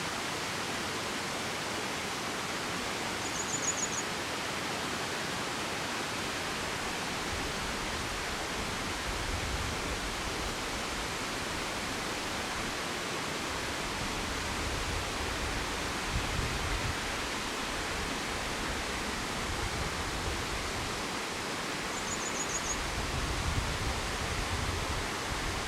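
Mountain waterfall rushing steadily, its water falling in an even hiss. Two brief high chirps come through, a few seconds in and near the end.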